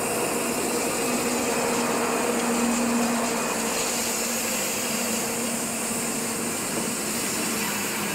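DB class 403 electric multiple unit running away along the track, a steady electric hum over a broad rushing hiss.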